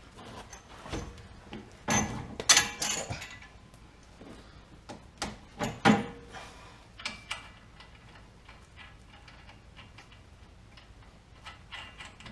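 Hand tools and steel steering parts clinking and knocking as the steering linkage is fitted, with scattered clicks and taps. The loudest knocks come in a cluster about two seconds in and once more about six seconds in.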